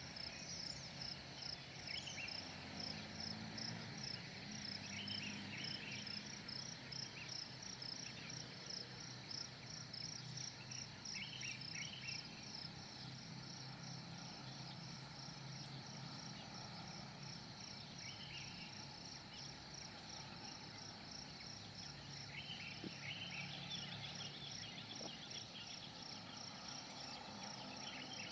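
A cricket chirping steadily at about two high chirps a second, with a few short bird calls scattered through it.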